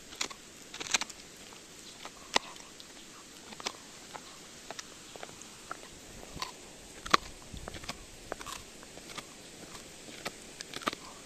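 Shiba Inu gnawing a sika deer bone: irregular sharp crunches and cracks of teeth on bone, a few of them much louder than the rest.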